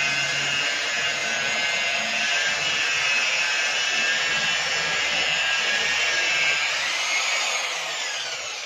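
Electric rotary polisher with a foam pad running at about 1600 rpm, buffing polishing compound into the varnish on a wooden kayak deck: a steady whine with the pad rubbing on the surface. About seven seconds in it is switched off and lifted, its whine falling in pitch and fading as the motor spins down.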